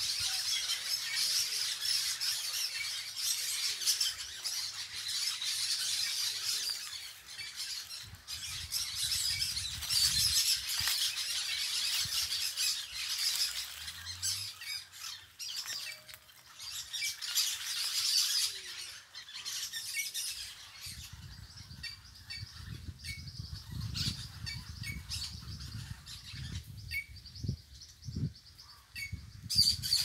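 A flock of parakeets chattering and squawking continuously in a tree. The calls thin out after about twenty seconds, when a low rumble comes in.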